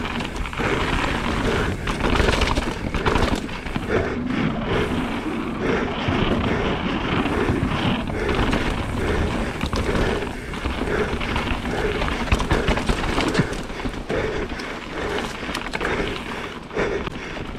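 Mountain bike riding fast downhill: wind rushing over the camera microphone and a rumbling, rattling noise with frequent clicks from the tyres and bike over the trail, with the rider breathing hard in rhythm about once a second.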